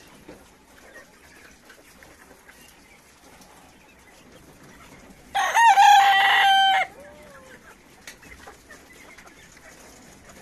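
Cochin rooster crowing once about halfway through, a call of about a second and a half: a few short opening notes, then one long held note.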